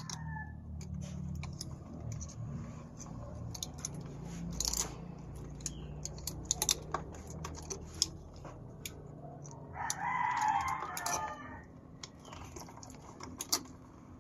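A rooster crowing once, starting about ten seconds in and lasting under two seconds, with the end of an earlier crow just at the start. Scattered sharp clicks come from pliers handling electrical wires.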